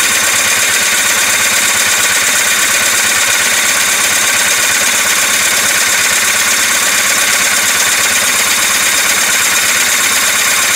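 Sea-Doo 3D's two-stroke engine cranking steadily on its electric starter without catching, then stopping suddenly near the end. The carburetors are still empty of fuel.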